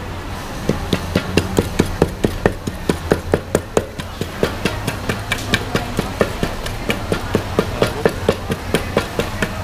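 Wooden pestle pounding green papaya salad (som tum) in a clay mortar, in a steady run of knocks at about four strokes a second that starts just under a second in.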